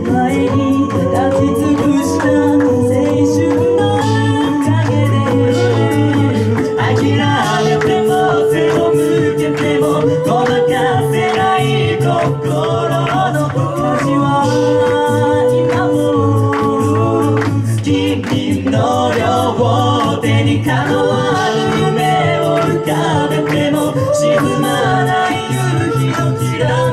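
Mixed male and female a cappella group singing: held chords over a sung bass line, with vocal percussion ticking out a steady beat.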